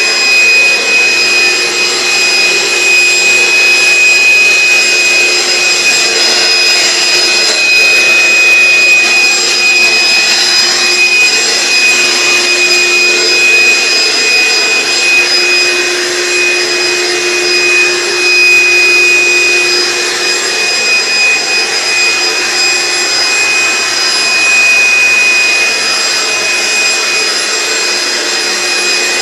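A motor running steadily and loudly: a rushing hiss with a high, steady whine over it. A lower hum fades out about two-thirds of the way through, and the noise is a little quieter after that.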